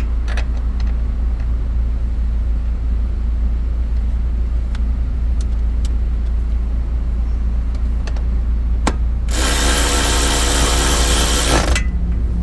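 Audi Q5 engine idling with a steady low rumble. About three-quarters in, a loud buzzing sound cuts in for about two seconds, then stops.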